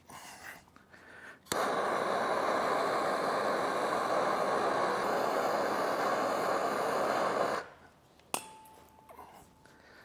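Handheld gas torch lit with a sharp click about a second and a half in, then burning with a steady loud hiss for about six seconds as its flame heats the end of a metal pipe, and shut off abruptly. A single sharp knock follows shortly after.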